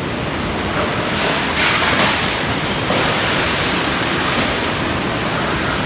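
Typhoon wind blowing hard, a steady rush of noise that swells in a gust between one and a half and two seconds in.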